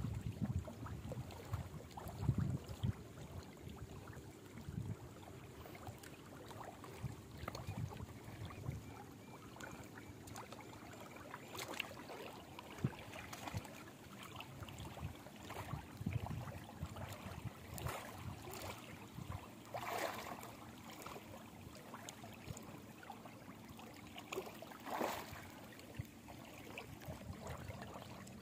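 River water lapping and sloshing around a man wading in the shallows, with a few brief splashes and an uneven low rumble.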